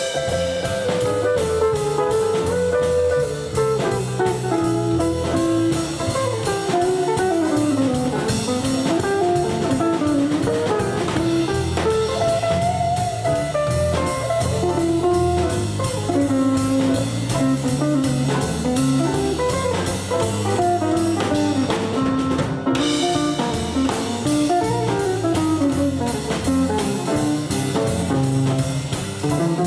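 Live swing jazz: an electric guitar plays winding single-note lines over a drum kit and double bass.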